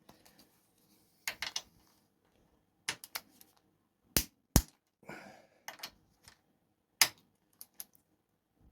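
Sharp metallic clicks, some singly and some in quick pairs, from a click-type torque wrench on the motorcycle frame rail bolts, each click signalling that the set torque of 44 newton metres is reached.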